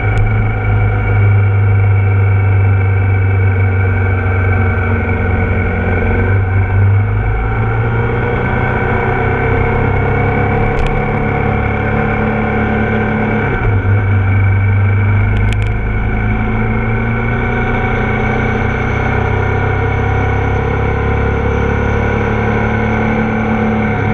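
Ducati Multistrada motorcycle engine running at a steady cruising pitch under wind rumble, with a brief dip in pitch about halfway through.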